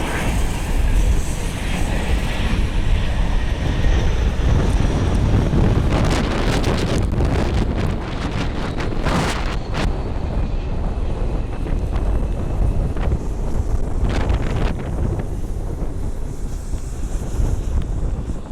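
Strong, gusty wind buffeting the microphone: a heavy low rumble that rises and falls with the gusts.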